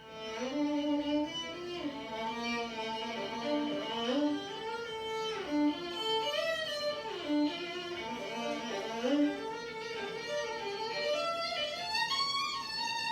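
Music: a fiddle melody over plucked guitar, starting suddenly.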